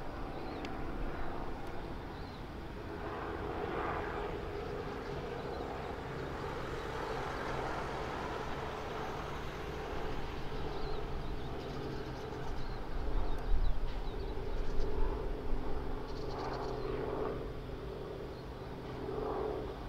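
Steady low drone of a cargo ship's engine, holding several constant low tones, over outdoor background noise. Louder low gusts of wind on the microphone come a little past the middle.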